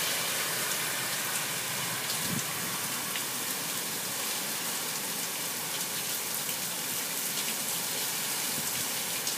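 Heavy hurricane rain pouring steadily, pattering on the wet walkway and plants.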